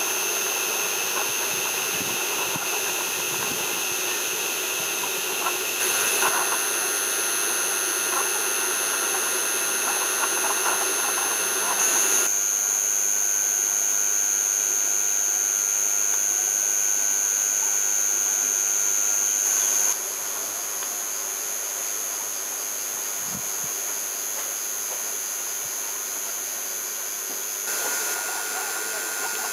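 Gauge 1 live steam model of a BR Standard Class 4 2-6-4 tank locomotive hissing steadily, with a thin high whistling tone over the hiss. The sound shifts abruptly in level and pitch three or four times.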